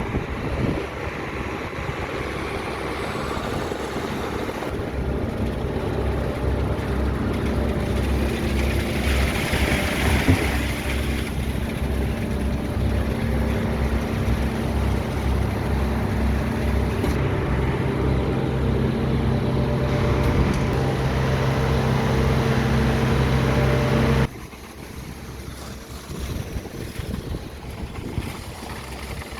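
Concrete mixer truck's diesel engine running steadily with a fast low throb. About 24 seconds in it drops abruptly to a quieter, lower engine hum.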